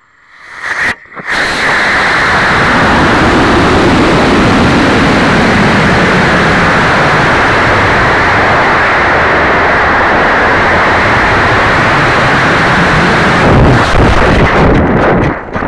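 Aerotech F40 reload motor lighting on an Aerotech Initiator model rocket, heard through the rocket's onboard microphone, followed by a loud, steady rush of exhaust and airflow during flight. About 13.5 seconds in, the rush becomes choppy and uneven.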